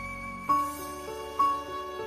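Slow, sad instrumental background music: held notes, with new notes entering about half a second and a second and a half in.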